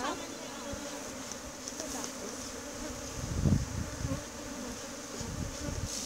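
A crowd of Africanized honeybees buzzing steadily around an opened hive, disturbed by frames being shaken for sampling. A brief low thump sounds a little past halfway.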